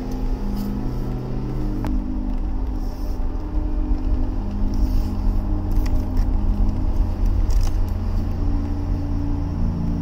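A car driving on a paved road, heard as a steady low rumble of road and wind noise.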